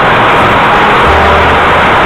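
Homemade motor-driven sand screening machine running: a loud, steady mechanical noise from the shaking screen frame, with a low hum coming in about a second in.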